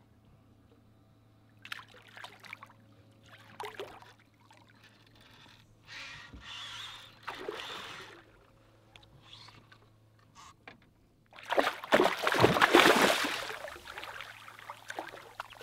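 Hooked juvenile tarpon thrashing at the surface beside the boat: a loud burst of splashing about eleven seconds in, lasting around three seconds. A few short, fainter sounds come before it.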